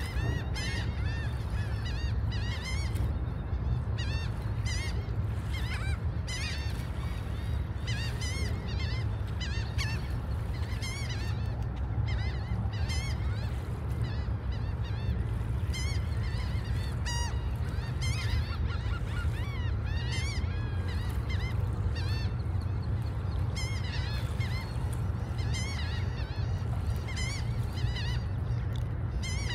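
Gulls calling again and again, many short pitched cries, some overlapping, over a steady low rumble.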